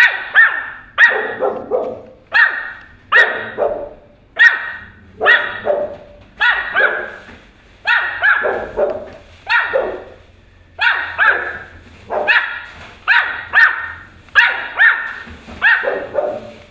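Pomeranian puppy barking over and over in high, sharp yaps, about one every 0.7 seconds without a break.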